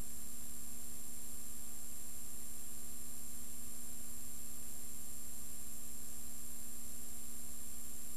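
Steady electrical hum and hiss with no other sound: the noise floor of a silent film's transfer.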